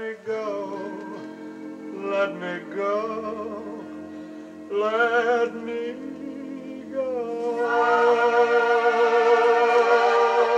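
Vinyl record playing on a Philips GA308 turntable: a sung vocal line with a wide vibrato on its held notes over accompaniment, swelling about seven seconds in into a louder, sustained instrumental passage.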